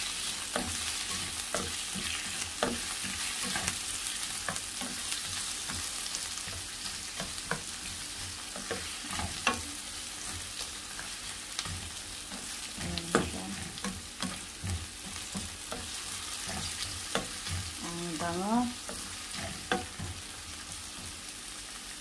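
Sliced onion and ginger sizzling in oil in a nonstick frying pan, with a steady hiss and scattered clicks and scrapes from a slotted spatula stirring them.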